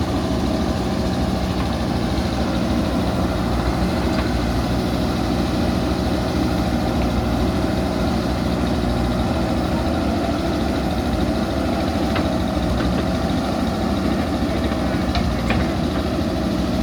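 JCB backhoe loader's diesel engine running steadily at a constant speed, with no revving.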